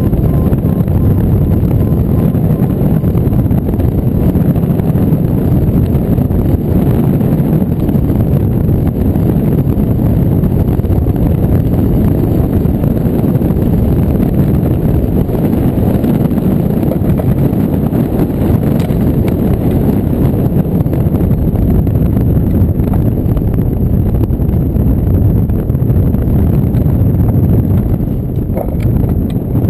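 Steady, loud rush of airflow buffeting the microphone of a camera mounted on a hang glider in flight, easing briefly near the end.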